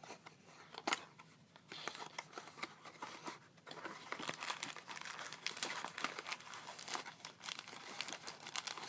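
Toy packaging crinkling and rustling as it is opened and handled, a dense run of small crackles that starts sparse and becomes continuous after the first second or two.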